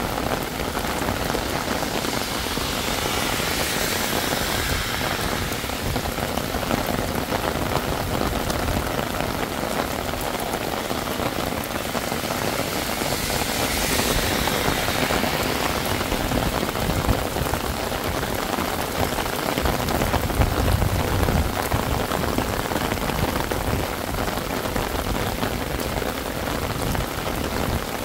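Heavy rain falling steadily, an even hiss of rain on hard surfaces. Twice the hiss swells and fades, and a brief low rumble comes about three quarters of the way through.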